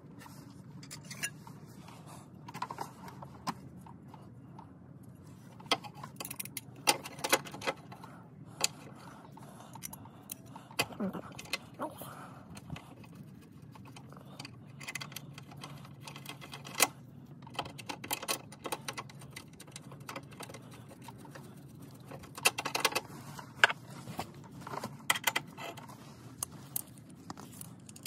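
Small access cover being fitted back onto the underside skid plate of an ATV, with its bolts and tools handled: scattered clicks and knocks, some in quick clusters, over a faint steady low hum.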